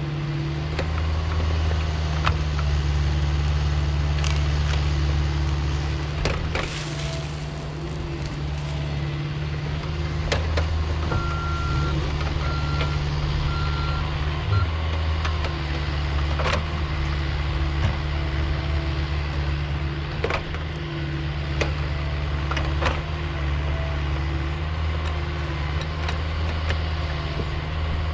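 Diesel engine of Caterpillar heavy equipment running steadily at working speed, with scattered clanks and knocks. Near the middle, a backup alarm beeps four times.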